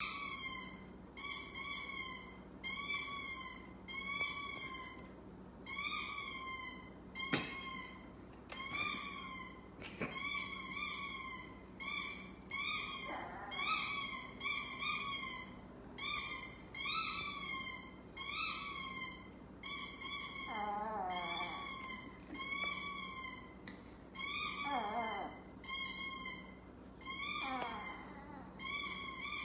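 Ducklings peeping over and over from a television, a short high call roughly every second, with a small dog howling along several times in long falling howls in the second half.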